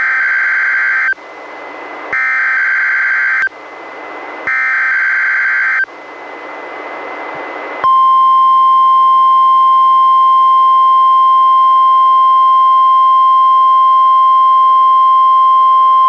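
NOAA Weather Radio Emergency Alert System test over a weather radio: three screeching digital SAME header bursts about a second long each, two seconds apart, with static hiss between them. About eight seconds in, the steady 1050 Hz warning alarm tone begins and holds as one unbroken high tone.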